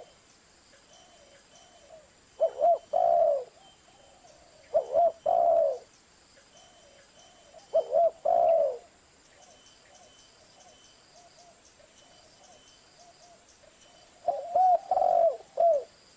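Spotted dove (tekukur) cooing: four phrases of two or three low, curving coo notes, a few seconds apart, with fainter coos in between.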